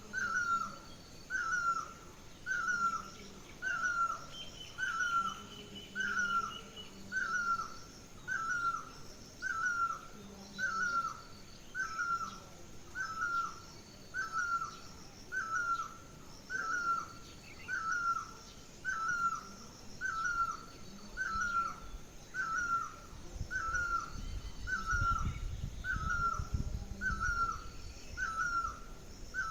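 A bird repeating one short, falling call note over and over, very evenly, a little less than once a second, with fainter high chirps from other birds behind it. A low rumble comes in about three-quarters of the way through.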